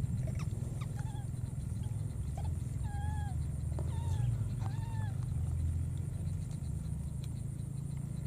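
Baby monkey giving about six short, high cries that each rise and fall in pitch, over a steady low rumble.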